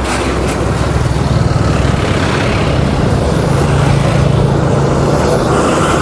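Traffic on a busy road passing close by: cars, trucks and motorcycles, with a steady low engine drone.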